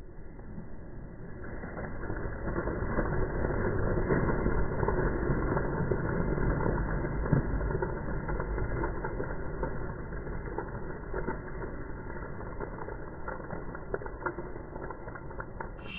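A large flock of pigeons taking off together, a rushing clatter of many wingbeats that builds over the first few seconds and slowly eases off. It sounds muffled, with no high end.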